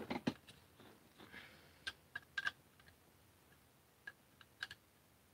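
A screwdriver tightening screws in the plastic body of a 3D-printed Caliburn foam-dart blaster: a few faint, scattered clicks in two small groups, the screws being snugged up because they keep working loose.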